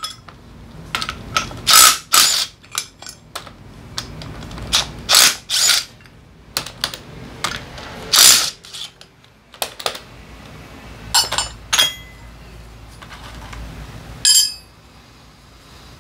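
Cordless drill with a 14 mm socket running in short bursts, spinning the nuts off a motorcycle's rear sprocket, with ratchet-like clicks and clinks of metal between the bursts.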